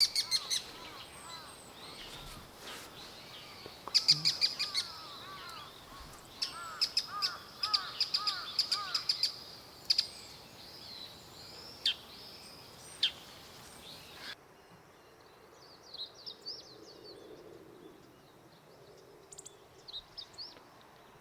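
Wild songbirds calling: runs of repeated, arching nasal call notes and sharp chirps. About two-thirds of the way through the background changes abruptly, and fainter, higher chirps follow.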